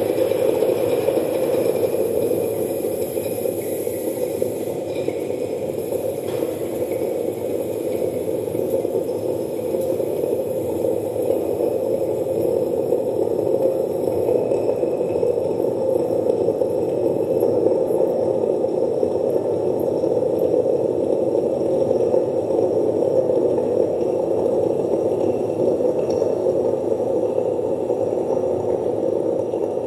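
Live minimalist electronic music from a laptop and mixer played over a PA loudspeaker: a dense, steady, grainy drone built from phase-shifted short loops, holding at one even level.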